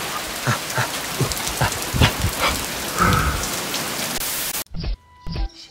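Steady rain falling, with a few louder taps standing out, until it cuts off suddenly near the end.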